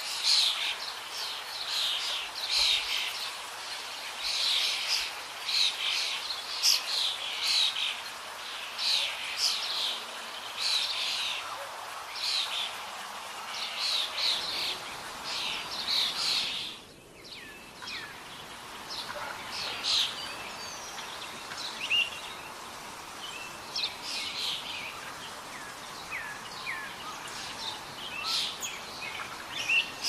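Small songbirds chirping and singing: a dense run of quick, high chirps, then a short break a little past halfway and sparser calls with a few gliding notes.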